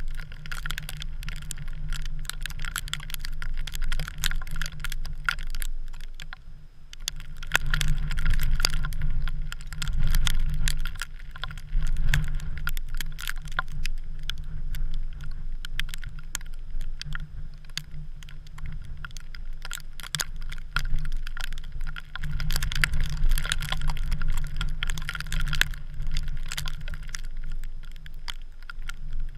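Wind rumbling on a GoPro's microphone, with a dense crackle of small clicks over it, swelling and easing in gusts.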